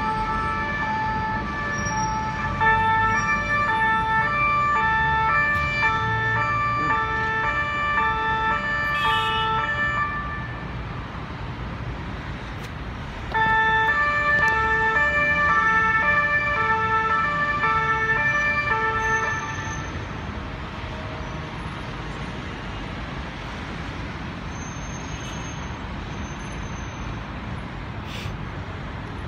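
Two-tone siren of police vans, quickly alternating a low and a high note over steady city traffic. It stops about a third of the way through, comes back louder a few seconds later, then cuts off again, leaving only the traffic noise.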